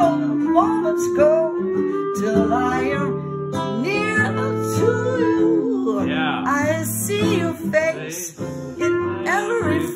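Instrumental break in a slow jazz ballad: a clarinet plays a wavering, gliding melody over strummed acoustic guitar chords.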